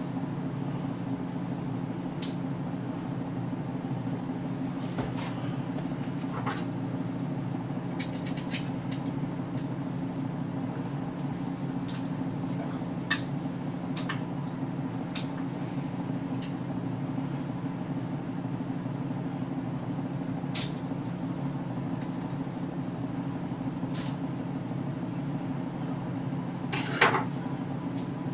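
Kitchen handling sounds: scattered light clicks and knocks of containers and utensils, with a louder clatter near the end, over a steady low hum.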